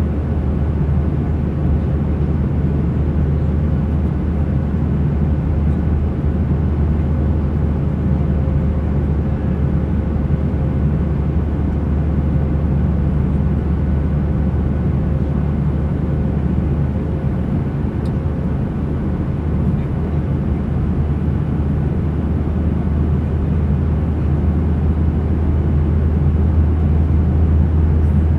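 Airliner cabin noise in flight: a steady low rumble of engines and airflow, with a faint steady tone that fades out about two-thirds of the way through.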